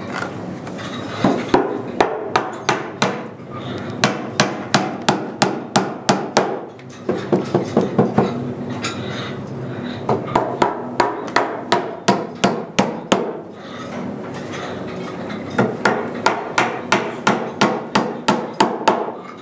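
A hammer striking in several quick runs of blows, about three a second, with short pauses between the runs, over a steady background hum.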